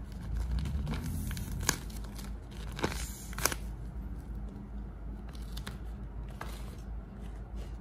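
Handmade paper squishy shaped like a chip bag crinkling as it is squeezed and handled, with a few sharp crackles in the first half.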